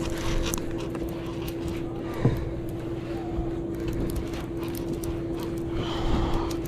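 Sportfishing boat's engine humming steadily under wind and sea noise, with faint clicks from a conventional reel being cranked in against a hooked tuna.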